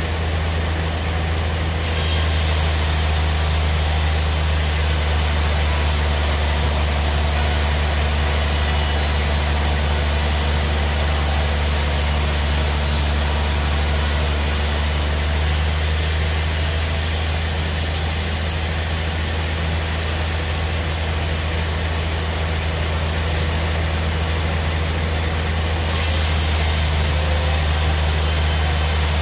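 Band sawmill machinery running with a steady low drone and a hiss above it. The hiss brightens about two seconds in, eases around the middle and brightens again near the end.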